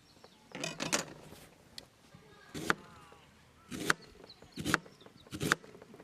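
A series of sharp knocks about one a second, the first few coming in a quick cluster.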